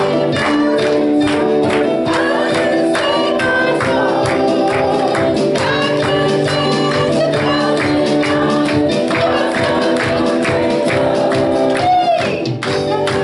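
Live gospel-style worship music: voices singing over sustained keyboard chords, with a tambourine and regular beats keeping time.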